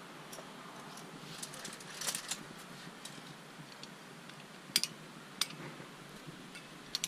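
Metal climbing gear clinking: carabiners and quickdraws on a harness knocking together in a few short, sharp clicks as the climber moves, over a faint steady hiss.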